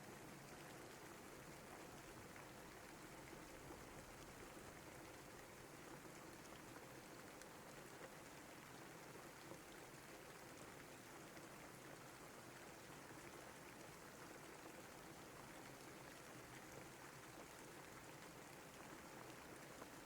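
Steady rain: a faint, even hiss of many falling drops that never lets up.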